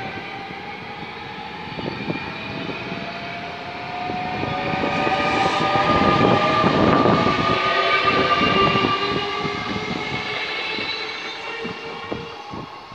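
SNCF Z 23500 and Z 24500 double-deck electric multiple units passing close, their traction motors whining in several thin tones that rise slowly as the train gathers speed, over wheel rumble and clicks on the rails. It is loudest about six to eight seconds in, as the coupled cab ends go by, then fades as the train draws away.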